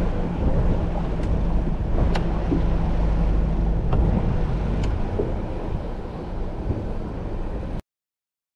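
A small motorboat running at low speed: steady engine hum with wind buffeting the microphone and water rushing along the hull, and a few light clicks. The sound cuts off abruptly near the end.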